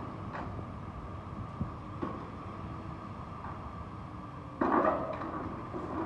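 Demolition excavator running steadily while its hydraulic shear works the steel members of a lattice pylon, with a few light clicks. A little past four and a half seconds in comes a louder, short burst of grating metal.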